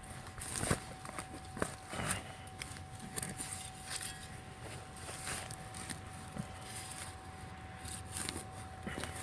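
Digging in sandy, rooty soil with a hand digging tool: scattered scrapes, crunches and knocks. A steady tone runs beneath the digging and cuts off near the end.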